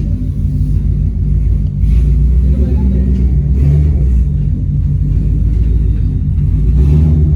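2018 Ford Mustang GT's 5.0-litre V8 idling through open 3-inch dump exhaust, straight piped from the headers: a loud, steady, slightly uneven low rumble that gets a little louder about two seconds in.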